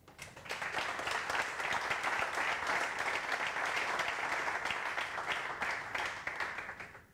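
Audience applauding, rising within the first second, holding steady and dying away near the end.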